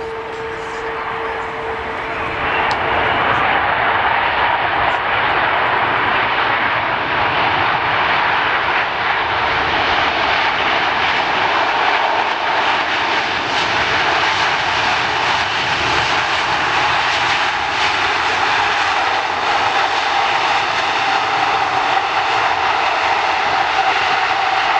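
Jet engine noise from a landing Emirates Airbus A380, a four-engined airliner: a loud, steady rush that swells about two seconds in and holds, with a faint whine that drifts slightly lower in pitch.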